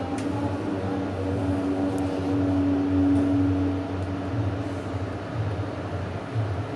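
A steady, low droning soundtrack: one held tone over a dense rumble, with no speech.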